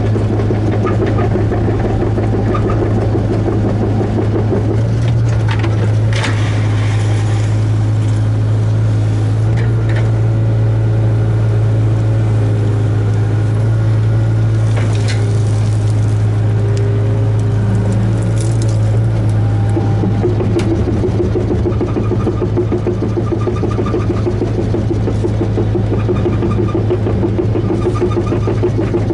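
Hitachi ZAXIS 75UR compact excavator's diesel engine running steadily under working load, heard from inside the cab as a loud, even drone. A few brief clatters and scrapes come from the bucket working gravel and soil.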